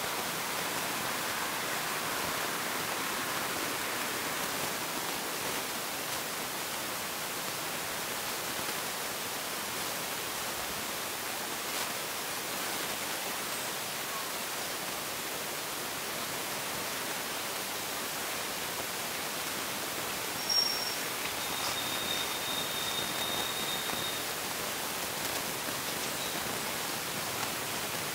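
Steady, even hiss of outdoor background noise with no animal calls standing out. About two-thirds of the way through, a brief high tone sounds, followed by a thin, steady high tone held for about two seconds.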